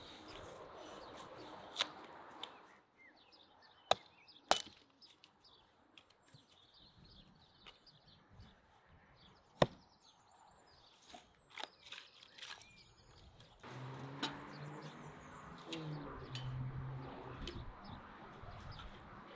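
A few sharp, isolated knocks, with birds chirping faintly. About two-thirds of the way through, a low hum comes in and stays.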